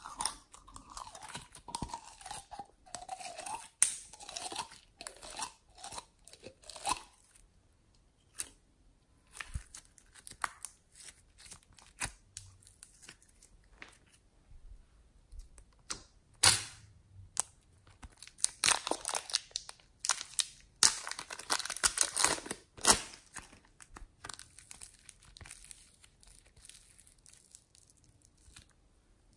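Sticky glossy slime squelching, crackling and clicking as it is squeezed out of a glass bottle and worked by hand, with a wavering squelch in the first few seconds and a dense run of crackles and pops later on.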